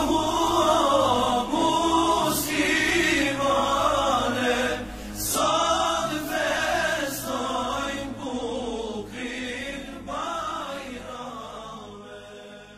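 Voices singing a chant as background music, fading out near the end.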